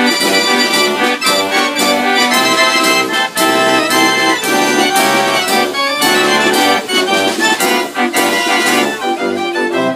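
A. Ruth & Sohn concert fair organ playing a tune: reedy pipe melody and chords over a regular, repeating bass with a steady beat.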